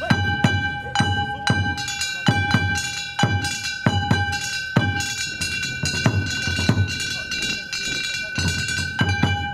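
Danjiri bayashi festival music being rehearsed: deep taiko drum strokes about one to two a second, each boom falling in pitch, over a steady ringing clang of metal hand gongs.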